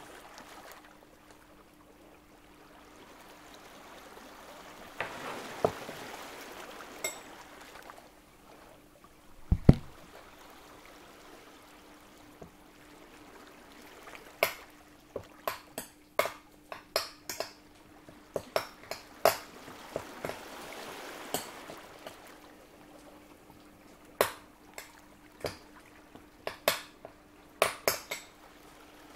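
Kitchen prep sounds: utensils tapping and clinking against dishes, with a quick run of sharp taps through the second half, two soft pouring-like swells, and one heavy thud about ten seconds in. A faint steady hum runs underneath.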